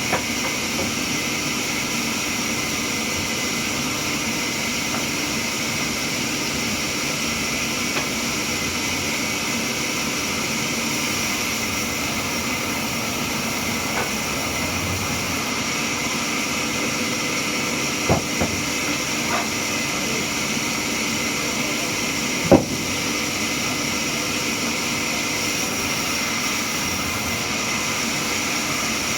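Sawmill machinery running steadily with a constant mechanical drone and whine, broken by a few sharp knocks past the middle, the loudest about three-quarters of the way through.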